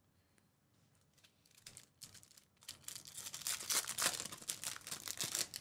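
Foil wrapper of a 2023 Topps Pristine Road to Euro soccer card pack crinkling loudly as hands tear it open, starting about two and a half seconds in.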